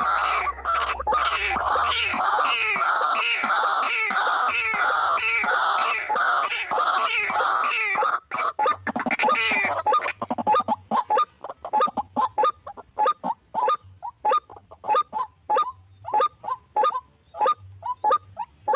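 White-breasted waterhen calling: a run of harsh, repeated croaking notes about three a second, then, after about eight seconds, shorter separate notes at a steady beat.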